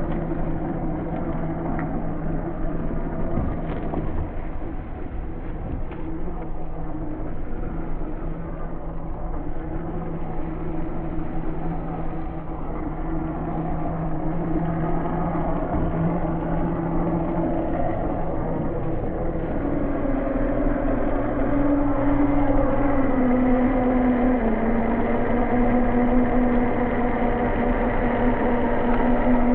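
Motor of a 1/10 scale RC rock crawler running in a steady drone that drops in pitch in a few steps after about twenty seconds, with rough rumbling underneath.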